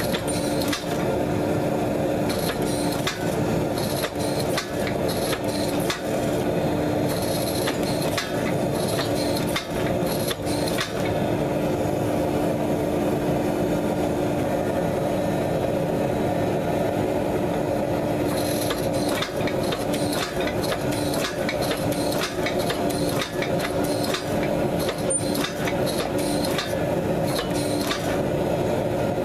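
Forging press running with a steady motor hum while a red-hot damascus billet is squeezed between its dies, with frequent clinks and knocks of steel spacer blocks, tongs and falling scale.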